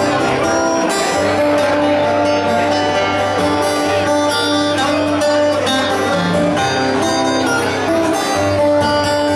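Solo acoustic guitar played live in an instrumental passage, picked melody notes over ringing bass notes, with no singing.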